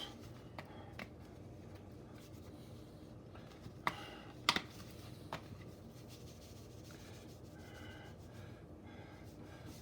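Quiet kitchen handling noise: a few light clicks and taps, the sharpest about four and a half seconds in, over faint room tone.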